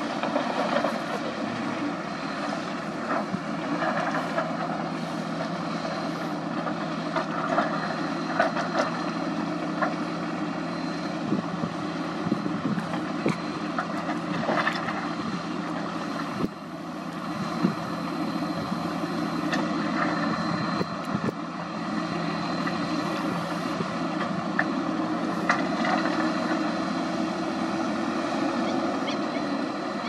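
Diesel engines of a Shantui crawler bulldozer and a dump truck running steadily, with scattered knocks and clatter of rock being pushed and tipped.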